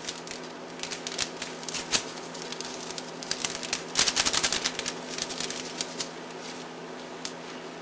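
Paper packets of Equal sweetener being shaken and opened: quick crinkly clicking in two bursts, one about a second in and a longer one around four to six seconds in.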